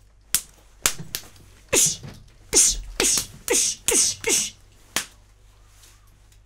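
Foley sound effects: a few sharp clicks, then six short swishes in quick succession, each dropping in pitch, and a last single click about five seconds in.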